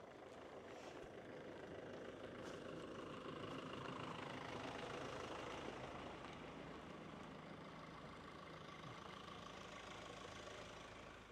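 A motorhome's engine running as it drives slowly past on a dirt track. It grows louder as it nears, then slowly fades as it moves away.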